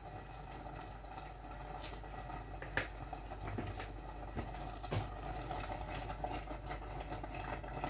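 Covered stainless steel pot of cassava leaf sauce simmering on an electric hob: faint low bubbling with a few soft pops, over a steady low hum.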